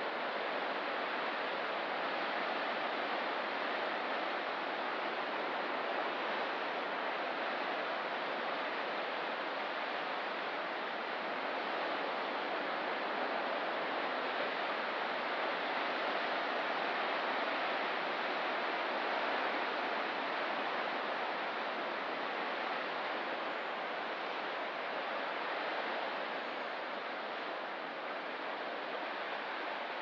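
Ocean surf on a rocky coast, a steady continuous rush with no single waves breaking out from it.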